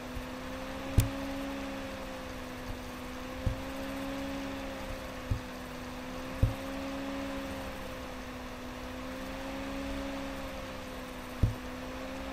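Computer mouse clicked sharply about five times, a few seconds apart, the first the loudest, over a steady low hum whose pitch wavers slowly.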